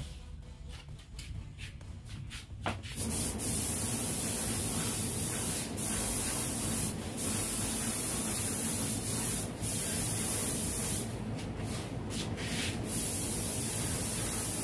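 Auarita F3 air spray gun spraying black paint at about 2 bar (30 psi): a steady hiss of compressed air and atomised paint that starts about three seconds in, with several brief breaks as the trigger is let off. A few faint clicks come before it.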